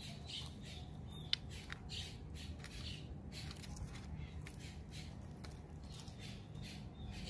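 Sulcata tortoise biting and chewing raw green bell pepper and broccoli: an uneven run of crisp crunches, with one sharp snap a little over a second in.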